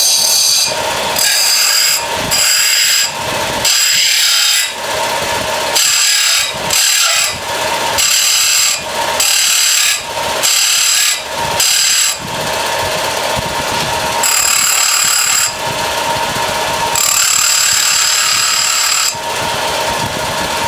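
A disc sander grinding the end of a small steel shaft cut from a bolt, with the metal pressed against the spinning abrasive disc in about fifteen short passes and the motor running between them. Most passes last under a second; the last two run longer, the final one about two seconds.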